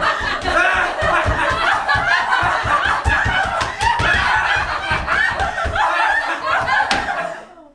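Several people laughing and giggling together, many voices overlapping. The laughter cuts off abruptly near the end.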